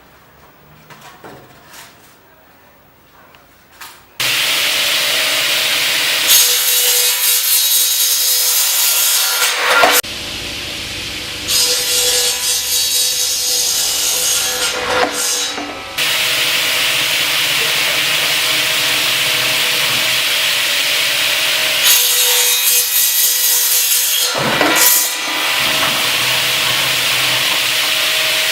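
A bamboo crosscut machine's power saw starts suddenly about four seconds in and runs steadily with a held hum. Three times it grows harsher and louder for a few seconds as it cuts through round bamboo culms.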